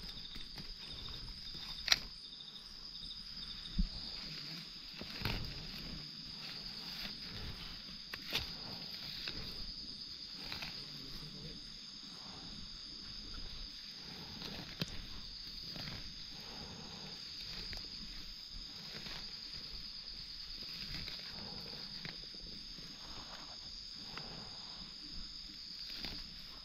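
Steady high-pitched insect chirring, with scattered rustles and sharp clicks, the loudest about two seconds in.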